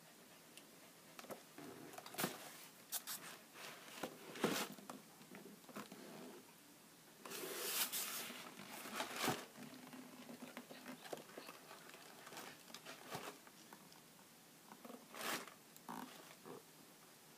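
Cardboard shoebox being handled: scattered faint scraping and rubbing of cardboard with a few sharp taps, and a longer scrape about seven or eight seconds in.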